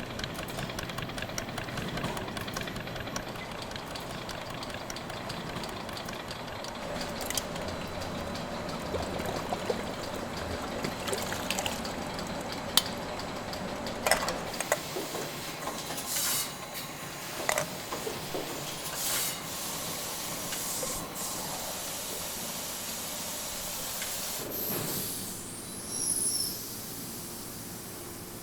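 Brewing equipment with a steady hiss and rush of liquid, like steam or pouring, and scattered sharp clinks and knocks through the middle.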